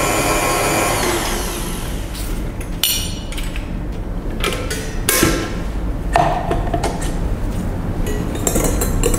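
Electric stand mixer whipping egg whites with a wire whisk, its motor whine falling away about two seconds in as it winds down. Then a few sharp clinks and knocks of a metal spoon and the whisk against the glass bowl and the mixer.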